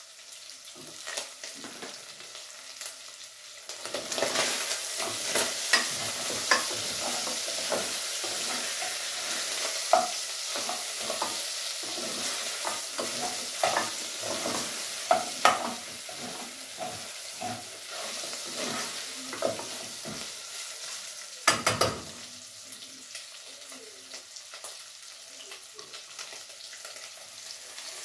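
Meat frying and sizzling in a pot on a gas stove, with a metal spoon scraping and stirring against the pot from about four seconds in. A few sharp knocks just after twenty seconds, then the sizzling goes on more quietly.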